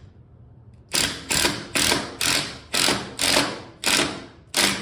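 A 9-amp corded half-inch drill driving a Tapcon screw into concrete in short trigger pulses. It makes about eight quick bursts, roughly two a second, starting about a second in.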